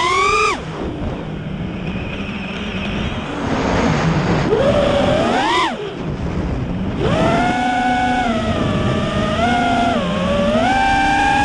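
FPV miniquad's brushless motors and propellers whining, the pitch climbing and falling with the throttle. The whine drops away sharply just after the start and again near six seconds, as the throttle is cut for flips and rolls, then comes back in stepped surges.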